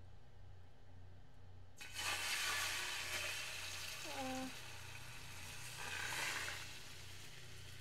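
Beaten egg poured into a hot electric skillet sizzles, starting suddenly about two seconds in. The sizzle swells again near six seconds as the skillet is tilted to spread the egg into a thin layer for tamagoyaki.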